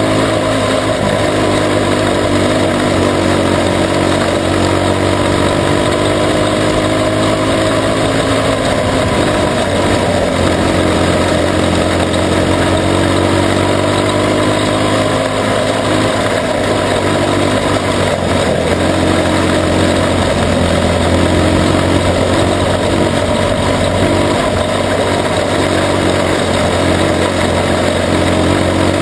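Junior sprint car engine running hard under race load, heard from on board, its pitch rising and falling gently through the laps over a steady rushing noise.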